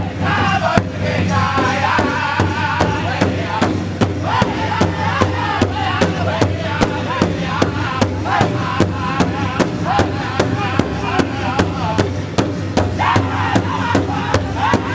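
Powwow drum group singing a contest song: several men's voices singing together over a large powwow drum struck in a steady, even beat by the whole group.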